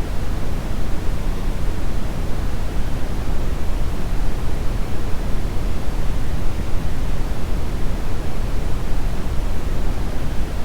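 Steady brown noise: a continuous, even low rumbling hiss, strongest in the bass and falling off toward the treble, with no changes or events.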